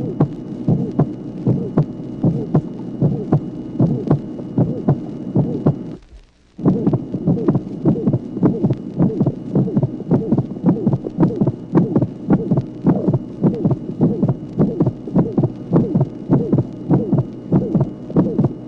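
Recorded human heartbeat in a steady rhythm, with a high-pitched musical ejection murmur and a split second heart sound. The recording drops out for about half a second around six seconds in, then resumes.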